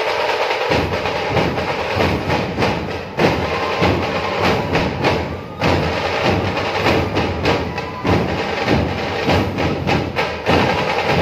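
Drums beating a rhythm amid a noisy crowd; the deep drum sound comes in about a second in.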